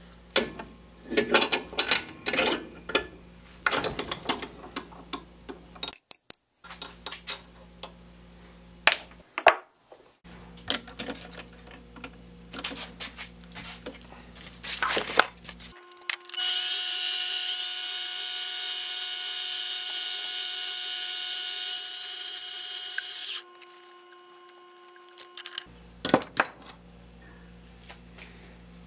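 Metal clicks, knocks and scrapes of a steel ice-pick shaft being worked in a bench vise and fitted into a lathe chuck. About halfway through, a mini lathe's motor spins up to a steady high whine, runs for about seven seconds and stops.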